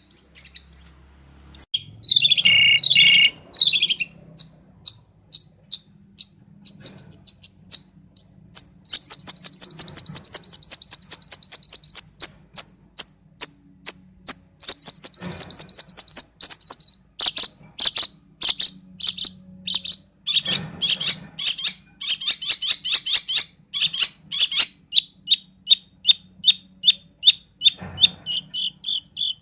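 Long-tailed shrike singing loudly: a fast, chattering run of short high notes broken by a few longer rattling trills and brief pauses. It is in full song with mimicked phrases.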